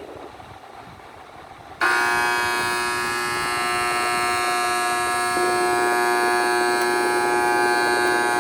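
Window air conditioner making a loud, steady buzz that starts suddenly about two seconds in, after its control knob is turned up, over the quieter steady running of its blower. The unit blows air but no cold air.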